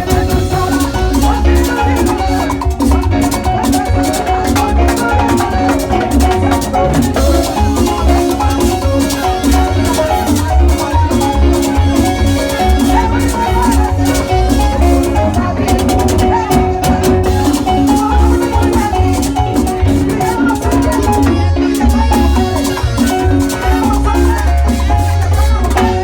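Loud Latin dance music with a heavy bass line and busy percussion.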